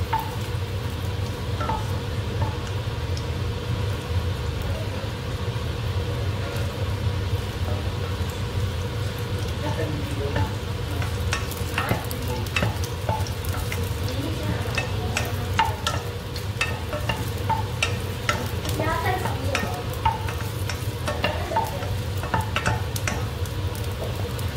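Garlic cloves sizzling lightly in oil in a nonstick saucepan while a wooden spatula scrapes and taps against the pan, the taps coming more often in the second half, over a steady low hum.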